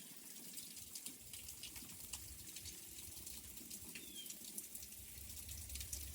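Faint, irregular ticking and dripping of ice and water in an ice storm, with a single short bird chirp about four seconds in. A low wind rumble builds near the end.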